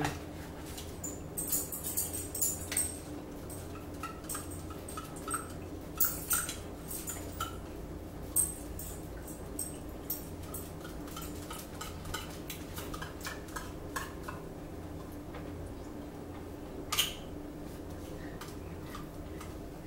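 A metal utensil clinking and scraping against a food dish while eating, in scattered short clicks, over a steady low hum.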